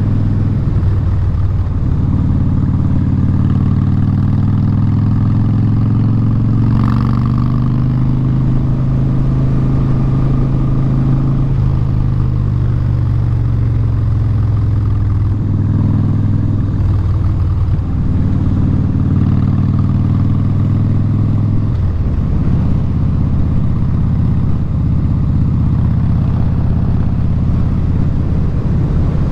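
A 2017 Harley-Davidson Street Bob's Twin Cam 103 V-twin runs loud through straight Vance & Hines Short Shots exhaust while underway, heard from the rider's seat. Its note climbs slowly for about ten seconds, then drops and changes pitch several more times as the rider works the throttle.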